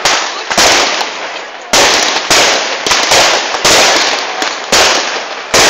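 Aerial fireworks bursting overhead, one after another: about ten loud bangs at intervals of roughly half a second, each dying away quickly before the next.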